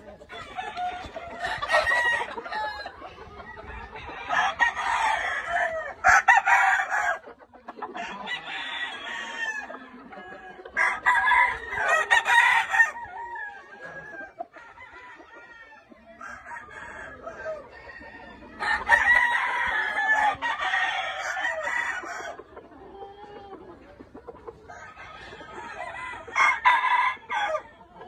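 Gamefowl roosters crowing again and again, about seven crows, each one to three seconds long, with short pauses between and a longer quiet stretch about halfway through.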